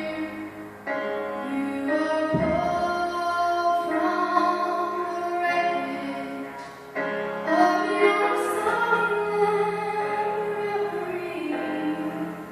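Female voice singing a slow song in long held phrases over musical accompaniment.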